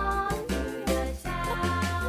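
Children's background music: a melody over a steady bass line.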